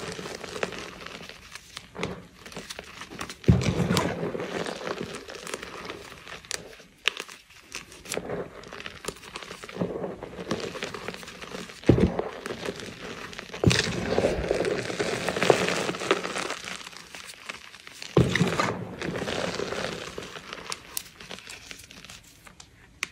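Hands squeezing and crushing a heap of loose, powdery gym chalk: soft crunching and crackling that comes in several bouts, each starting with a sharper crunch as the hands press into the powder.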